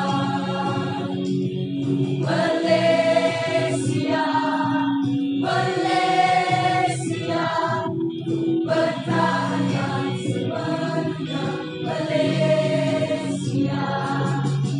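Choir singing a song over sustained chords, in long held phrases with short breaks between them.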